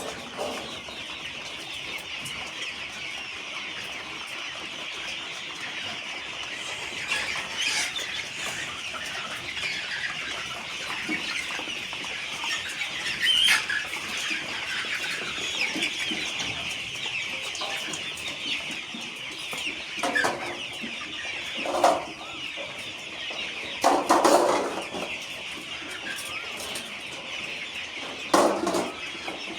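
A shed full of broiler chicks peeping, many high calls overlapping into a continuous chatter. A few louder, lower, short sounds break in about two-thirds of the way through and again near the end.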